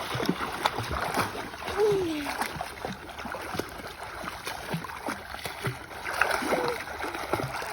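Heavy rain falling on water, with splashing from swimming and a constant spatter of small sharp splats. A brief falling voice sounds about two seconds in.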